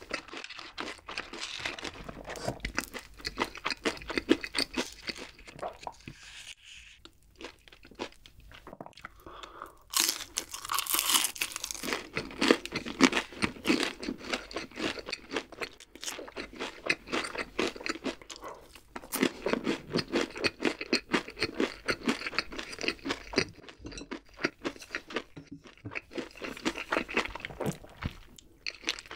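A person chewing crispy battered fried chicken feet close to the microphone: dense, irregular crunching with chewing, loudest about ten seconds in.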